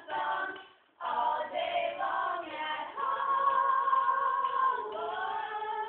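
Young voices singing a cappella. They break off briefly about a second in, then hold one long note from about three to five seconds in.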